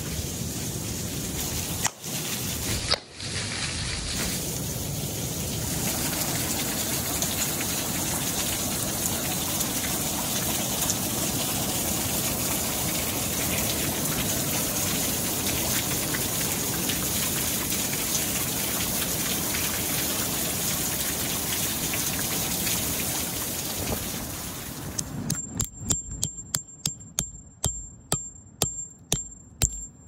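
Steady rushing water noise, then near the end a quick, regular run of sharp taps with a high ring, about three a second.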